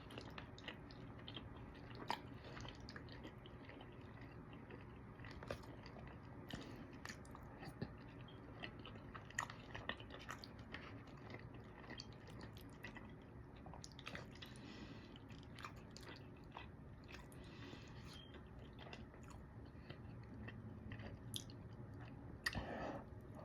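A person chewing and biting mac and cheese and fried chicken, close to the microphone: soft wet chewing with frequent small mouth clicks and occasional crunches, a louder bite near the end.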